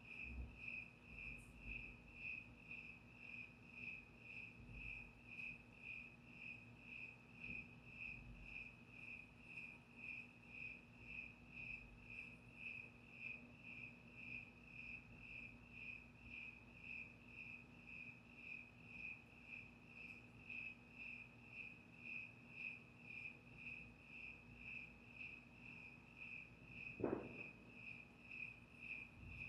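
Crickets chirping in a steady, even rhythm: a high-pitched pulse repeating about one and a half times a second. One brief thump sounds near the end.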